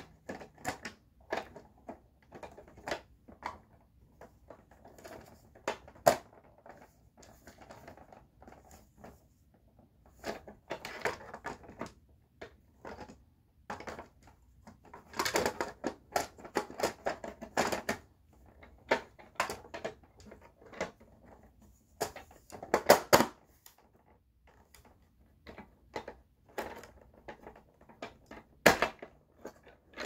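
Irregular clicks, knocks and rattles of hard plastic vacuum parts being handled and fitted: the height-adjuster wheel assembly of a Dirt Devil Dynamite Plus upright vacuum being worked back into place by hand. The rattling comes in denser spells about midway and again a little later, with a sharp knock near the end.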